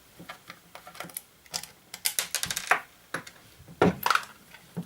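Irregular clicking and tapping of small metal parts and a hand tool as a metronome's motor is being taken out, with a quick run of clicks about two seconds in.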